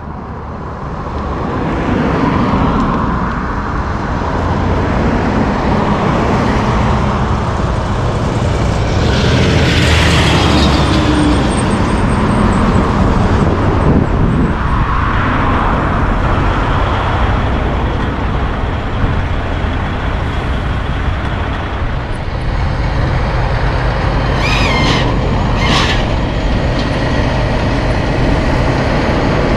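Heavy diesel trucks running and passing on a road, a steady engine rumble with traffic swelling past twice, and two short high hisses or squeals near the end.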